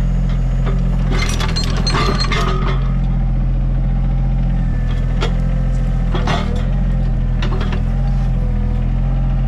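Mini excavator engine running steadily while it drags a pipe grading attachment on chains, with metal clinks and scrapes from the chains and pipe, a cluster of them about a second in and a few single ones later.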